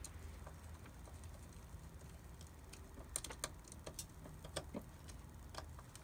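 Phillips screwdriver turning the small screws of a Hondata 4-bar MAP sensor into the throttle body: faint scattered clicks and scrapes, bunched up around the middle.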